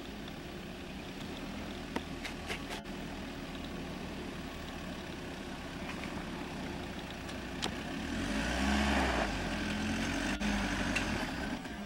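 Mahindra Alturas G4's 2.2-litre four-cylinder diesel engine running at low revs as the SUV crawls off-road, with a few sharp clicks. About eight seconds in the engine gets louder for some three seconds as it works the SUV over a rut.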